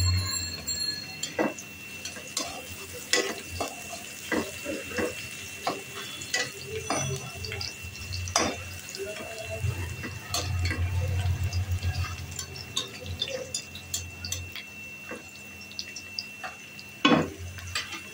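Sliced onions frying in hot oil in a non-stick kadai, with scattered sizzling crackles while a spatula stirs them. A single sharp knock comes near the end.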